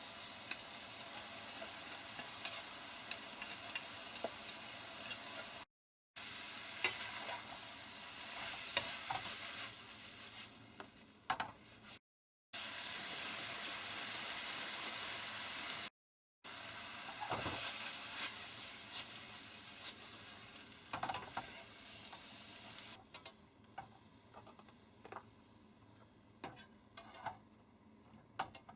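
Food sizzling in a frying pan, with scattered clacks and scrapes of a utensil stirring it. The sound cuts out briefly three times. About three-quarters of the way through, the sizzle dies down and mostly separate clacks are left.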